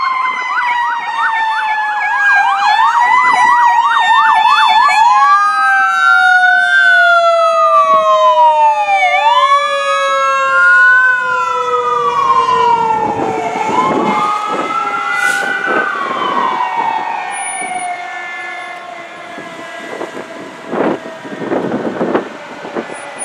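Fire engine sirens. An electronic siren switches from a fast yelp to a slow rising and falling wail, while a mechanical siren winds down in one long falling tone. Near the end the sirens fade and the truck's passing noise comes in short swells.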